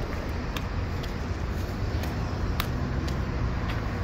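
Steady low outdoor rumble of road traffic, with a few sharp taps of footsteps on paving.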